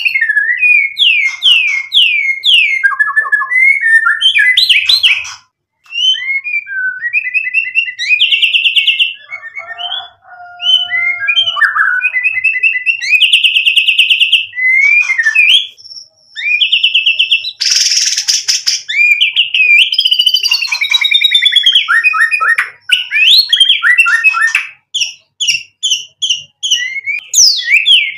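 White-rumped shama (murai batu) singing a long, varied song that runs through its repertoire: clear rising and falling whistles and fast trills, broken by brief pauses. A harsh buzzing burst comes about two-thirds of the way through, and a run of short quick notes near the end.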